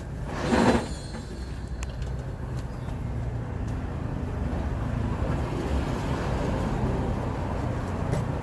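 Road traffic passing on a busy street: a steady low rumble of engines and tyres that grows a little louder after a few seconds. One short, loud burst comes about half a second in.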